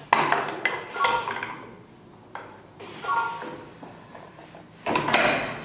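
Metal clanks and clicks from the receiver and bolt of a homemade 23mm bolt-action rifle being loaded by hand, a few knocks ringing briefly like struck metal. One knock comes right at the start, another about a second in, one about three seconds in, and a closer run of clatter about five seconds in.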